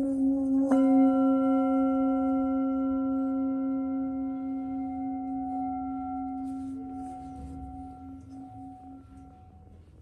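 A metal singing bowl hums with a low, wavering tone and is struck again a little under a second in. The strike brings up higher overtones over the hum, and the ring then fades slowly over about nine seconds.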